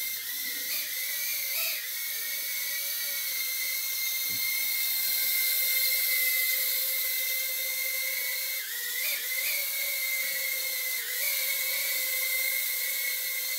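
Makerfire Armor Blue Bee 65 mm micro racing quadcopter in flight: its tiny motors and propellers give a steady high-pitched whine that wavers briefly in pitch a few times.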